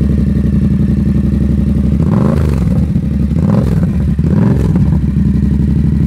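Yamaha MT-07 (FZ-07) 689 cc parallel-twin running through a Black Widow 200 mm carbon slip-on exhaust. It idles, then about two seconds in it is blipped three times, the revs rising and falling quickly each time before settling back to idle.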